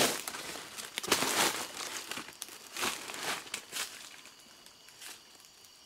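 Irregular rustling and crinkling: a run of short scraping, crumpling noises that thins out after about four seconds.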